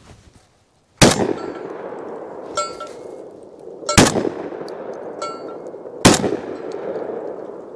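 Three shots from a Citadel Bosshog 12-gauge semi-automatic shotgun firing low-brass birdshot target loads: the first about a second in, then two to three seconds apart, each echoing off the hillside. Between the shots come fainter metallic clangs with a ringing tone from the struck steel target. The light loads cycle the action with no malfunction.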